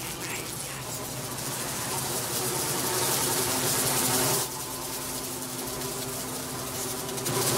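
Dense insect-like buzzing drone with low humming tones beneath it. It cuts in suddenly and swells, drops back about four and a half seconds in, then jumps louder again near the end.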